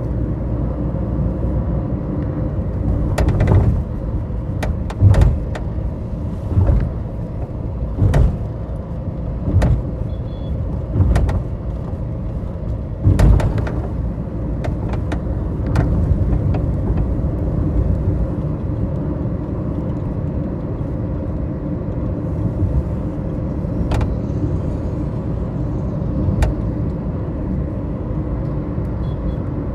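Moving road vehicle heard from inside, a steady low rumble of engine and tyres on the road. Several sharp knocks come through in the first half.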